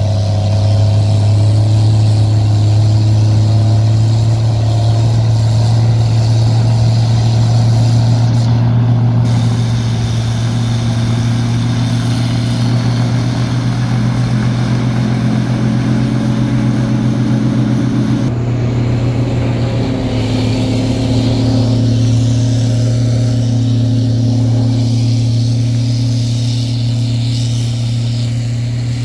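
Heavy diesel engines of a wheel loader driving a Tenco snow-blower attachment while it loads snow into a dump truck: a loud, steady engine drone, with a brief change about two-thirds of the way through.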